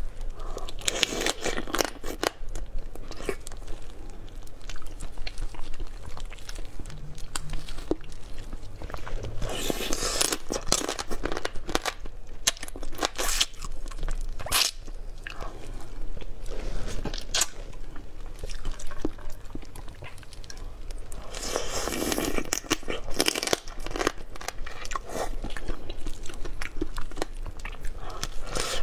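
A person chewing seafood close to the microphone: wet chewing with repeated crunches and sharp crackles. The loudest bursts of crunching come about a second in, around ten seconds in, and around twenty-two seconds in.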